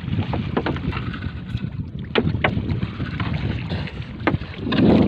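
Water sloshing against a small wooden outrigger canoe on the sea, with wind on the microphone and a few sharp knocks. There is a louder rush of noise near the end.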